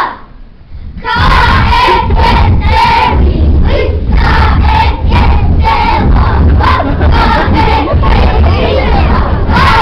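Kapa haka group of children chanting loudly in unison with a regular rhythmic beat, starting about a second in after a brief lull.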